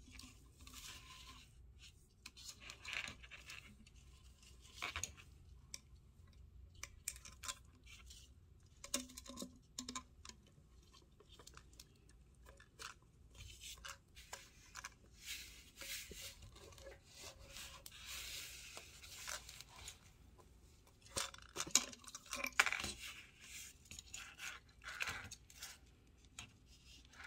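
A plastic bottle and fishing line being handled: irregular crinkles, scratches and small clicks, loudest about three quarters of the way through.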